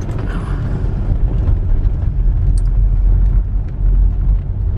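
Car driving on a snow-covered road, heard from inside: a steady low rumble of tyre and road noise.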